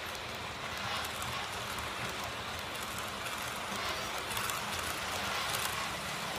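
H0-scale model trains rolling along the track: a steady rattling rumble of small wheels on rails, with fine irregular clicks.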